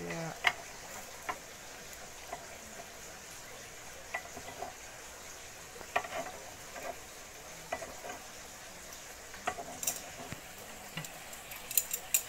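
Eggs frying in a double-sided frying pan over a gas burner, with a faint steady sizzle. Scattered sharp clicks of metal tongs and utensils against the pan come through it, with a quick clatter near the end.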